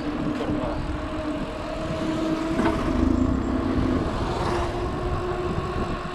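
Motor vehicle engine running with a steady drone, under a rough, gusting rumble of wind on the microphone.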